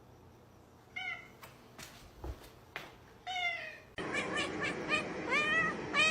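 Domestic cat meowing: two drawn-out meows with falling pitch in the first half. Then, over louder background noise, a cat gives a quick run of short, repeated meows.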